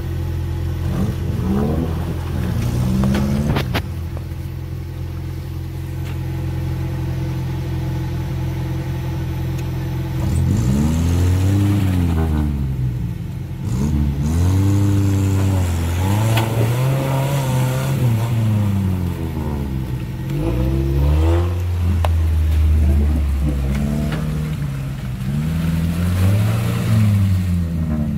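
Engine of an off-road 4x4 on mud tyres working through deep mud: running steadily at first, then from about ten seconds in revved up and down again and again, the pitch rising and falling every two to three seconds.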